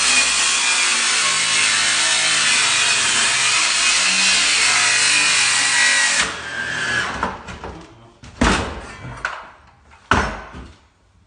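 A power tool running steadily for about six seconds, then winding down, followed by two sharp knocks.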